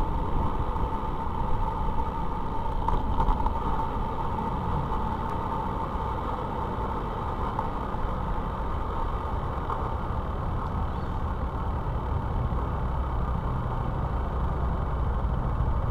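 Wind buffeting and road rumble on a bicycle-mounted camera while riding, with a faint steady whine through the first half.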